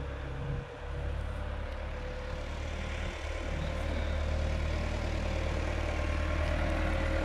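Tractor engine running steadily with a low drone, growing a little louder and slightly higher in pitch through the second half.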